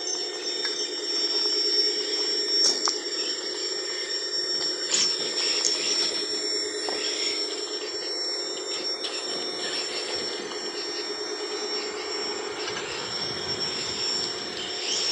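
Night insects trilling in a steady high ring over a lower steady pulsing drone, with a few faint clicks scattered through.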